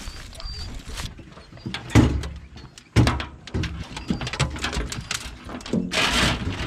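Two heavy thumps about two and three seconds in, then rattling chain leads, clicks and scraping as hounds are handled on a pickup's tailgate. A bird chirps faintly in the background.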